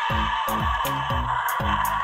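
Adventure Force Mighty Megasaur T-Rex toy playing its recorded roar through its small built-in speaker: a harsh, rasping electronic roar set off by pressing the toy. Background music with a quick repeating plucked figure runs under it.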